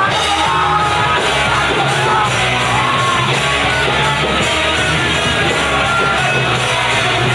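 A rock band playing loud and live: electric guitars, bass and drums, with sung and yelled vocals.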